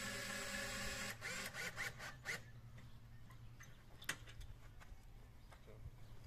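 A cordless drill driving a heavy-duty scissor jack's screw runs steadily and stops about a second in. A few sharp metallic clicks and rattles follow as the drill and its adapter are worked off the jack, with one more click near the middle.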